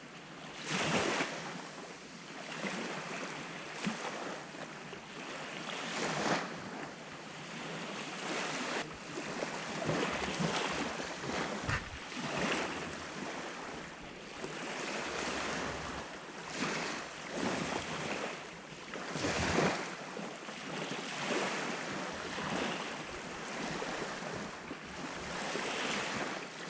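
Sea waves washing and surging in uneven swells every few seconds, with wind buffeting the microphone.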